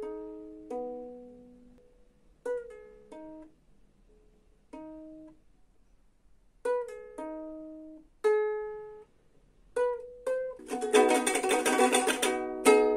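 Ukulele played slowly, with single plucked notes and small chords each ringing out and fading, then a quick, louder strummed flourish near the end.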